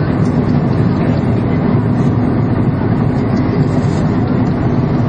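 Steady drone of an Airbus A330's jet engines and rushing airflow heard inside the passenger cabin during the descent to land.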